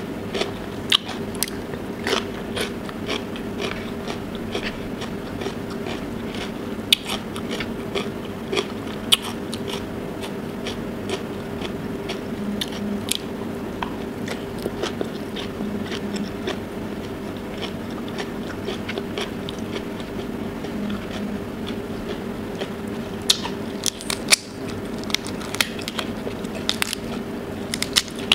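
Close-miked eating: crunching bites and chewing with wet mouth clicks and smacks, irregular and unbroken, over a steady low hum. The clicks come faster and louder in the last few seconds as a cooked tiger prawn is pulled apart by hand.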